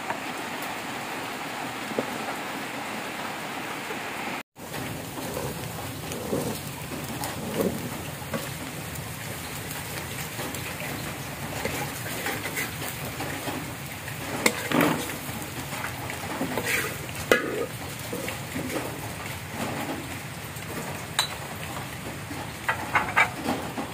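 Bánh xèo batter sizzling steadily in a hot wok, with scattered clinks and knocks of the ladle, spatula and dishes in the second half.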